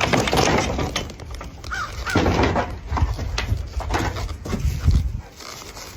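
Harsh, raspy animal calls, several in a row.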